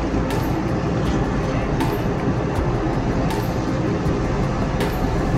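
Steady low rumble of a large ship's engines heard from the deck, with a faint tick about every second and a half.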